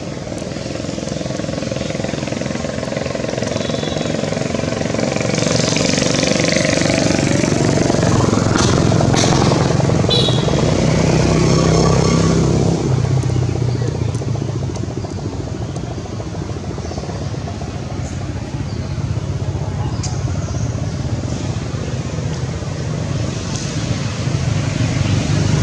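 A motor vehicle's engine running close by, growing louder over the first dozen seconds, fading, then swelling again near the end. A few short high chirps sound over it.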